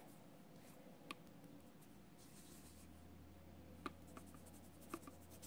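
Faint rubbing of fingertips working pressed powder into the skin on the back of a hand, with a few small clicks.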